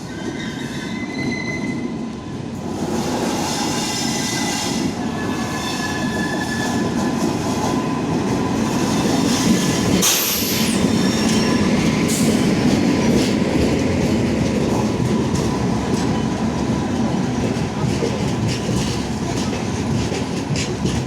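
Express train of LHB coaches rolling into a station platform: a steady rumble of steel wheels on rail that builds over the first few seconds, with high wheel squeals at first and a run of clicks as the wheels cross rail joints and points. A single sharp crack comes about ten seconds in.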